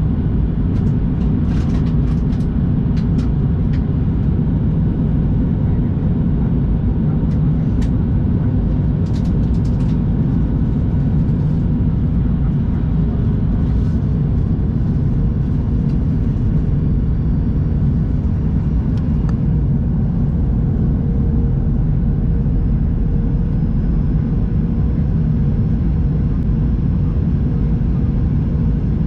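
Steady engine and cabin rumble inside a Boeing 737-800 airliner, heard from a forward window seat, with a few light clicks in the first ten seconds.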